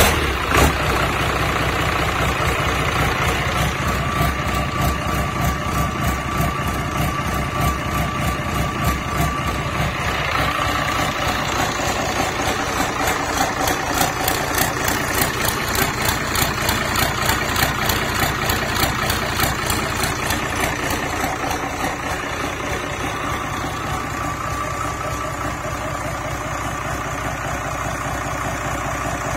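FPT Iveco N60-400 six-cylinder marine diesel engine idling just after starting, with a steady, even beat of firing pulses. It settles a little quieter about two-thirds of the way in.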